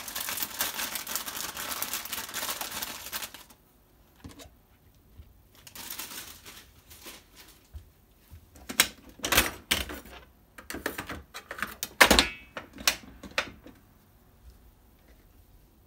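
Kitchen handling noises: a dense crackling rustle for about the first three and a half seconds, then, after a pause, a run of irregular light clicks and knocks, the loudest about twelve seconds in.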